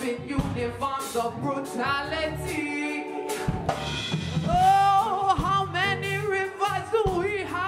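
Live band playing: a woman singing over electric keyboard, electric bass and a drum kit with regular drum hits.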